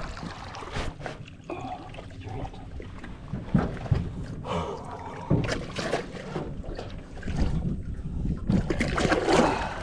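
Irregular knocks and thumps on a small boat with water splashing and dripping, as a big caught fish is wrestled alongside the boat.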